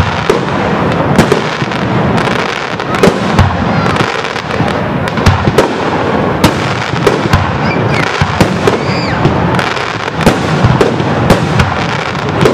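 Fireworks display: many sharp bangs, several a second, over a constant dense crackle of bursting shells.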